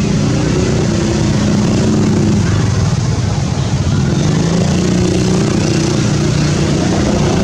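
Steady drone of a running motor-vehicle engine, its pitch wavering slightly, over a constant background rumble.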